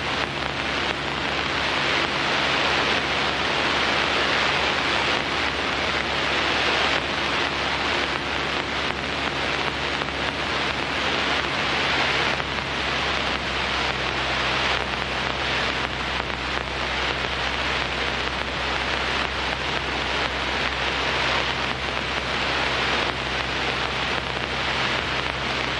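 Inside the cockpit of a Piper PA-17 Vagabond in flight: its Continental A-65 engine and propeller run steadily, a low drone under a loud, even rush of air over the cabin.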